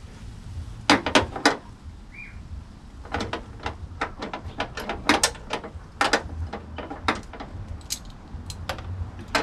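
Sharp, irregular metal clicks and clinks from a socket ratchet and small hardware as a 10 mm fender bolt is worked out and handled, a few about a second in and a dense run through the middle.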